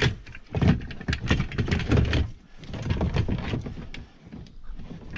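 Plastic knocks, clunks and clicks as gear is handled and fitted into the hatch of a Hobie kayak, an irregular run of thumps that thins out near the end.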